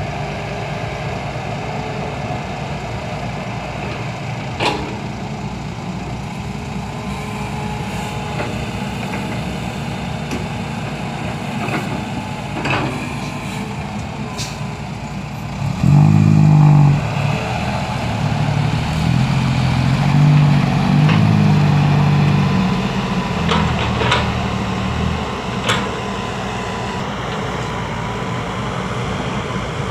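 Heavy diesel engines of a hydraulic excavator and a six-wheel dump truck running steadily, with occasional sharp knocks as soil and stones are loaded into the truck's steel bed. About halfway through, an engine suddenly grows much louder, then revs with shifting pitch for several seconds before settling back to a steady run.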